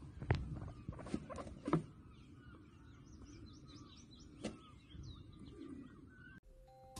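Faint bird chirps outdoors from about two and a half seconds in, with a few sharp clicks or knocks in the first two seconds and another about four and a half seconds in.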